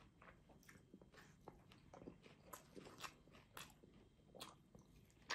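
Close-miked ASMR chewing of a mouthful of grilled kebab meal: quiet, irregular wet mouth clicks and small crunches, several a second.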